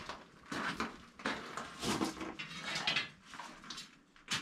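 Short, irregular scrapes and knocks of hand tools and props being handled and set down, a few times a second at most.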